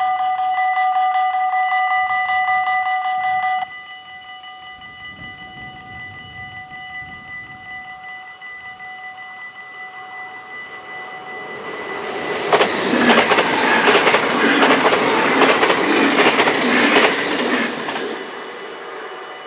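Dutch level-crossing warning bells ringing rapidly, cutting off abruptly about four seconds in. A train then approaches and passes through the crossing, loudest in the second half, with the wheels clattering over the rail joints, before fading away near the end.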